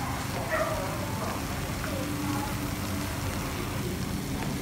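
Steady background noise with a low hum, and faint, brief traces of distant voices now and then.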